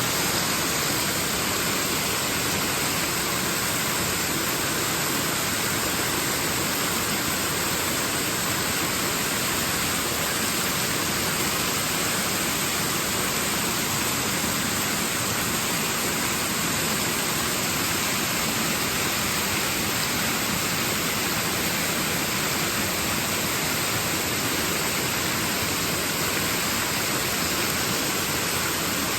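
Waterfall: falling water making a steady, unchanging rush.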